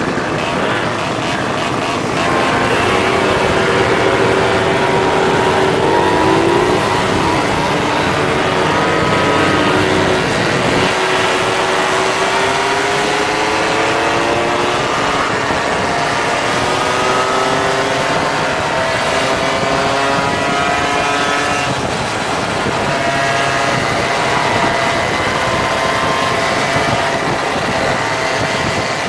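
Several moped engines running together in a group ride, their pitches rising and falling independently as the riders speed up and slow down.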